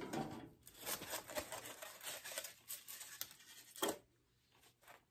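Cardboard box and packaging rustling and scraping as a DVD case is pulled out of a gift-set box, with one sharp knock near four seconds in.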